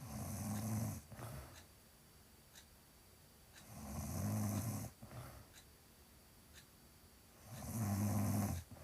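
A pregnant woman snoring loudly: three snores about four seconds apart, each about a second long and low-pitched, with a short softer breath sound right after the first two.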